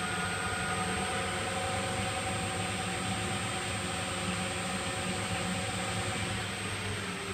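Metal lathe running, driven by a 0.75 kW three-phase motor on a variable frequency drive: a steady mechanical hum and gear noise with a thin high whine. Near the end the pitch slides down a little as it starts to slow.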